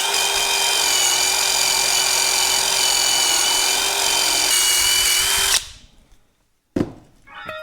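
Handheld electric power tool, drill-like, running at a steady high whine for about five and a half seconds, with a slight drop in pitch near the end before it stops. A short burst follows a second later.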